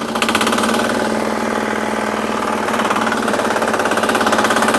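Small garden tractor's engine running steadily with an even, rapid pulse while it plows soil in second gear. The sound picks up slightly just after the start.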